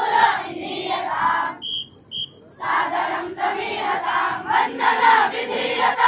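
A large group of boys shouting in unison as they march in a staff drill. The shouting breaks off about a second and a half in, two short whistle blasts sound, and then the group shouting starts again.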